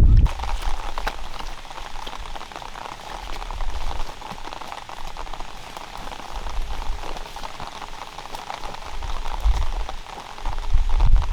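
Rain falling on a surface: a steady, dense patter of drops, with a few low rumbles near the end.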